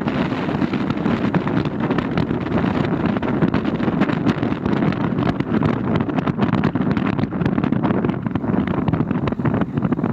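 Wind buffeting the microphone over a steady low rumbling noise, with constant crackling gusts.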